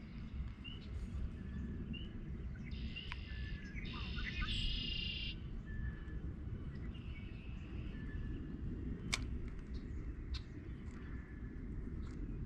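Wild birds chirping and singing, with short high notes every second or so and a brief trilling phrase a few seconds in, over a low steady rumble of outdoor background noise.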